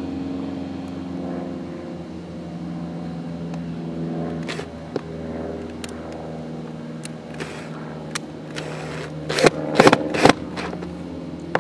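Small cordless drill/driver driving a screw into a boat's transom, its motor running as a steady whine. About nine to ten seconds in come several loud sharp clacks.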